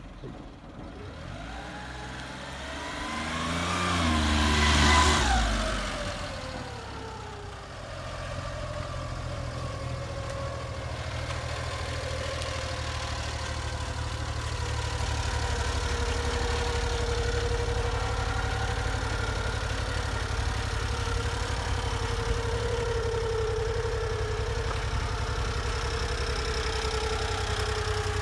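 1991 Honda Acty kei dump truck's three-cylinder engine running. Its note climbs in pitch and loudness to a peak about five seconds in and falls away, then it settles into a steady idle.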